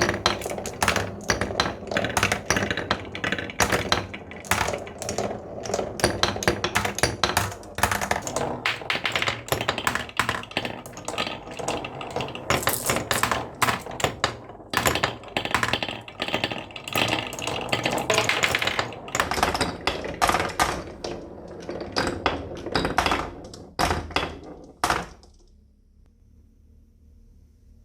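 Marbles clattering down a wooden HABA slope marble run: a dense stream of rapid clicks and knocks as they roll, drop and hit the track pieces, which stops suddenly near the end.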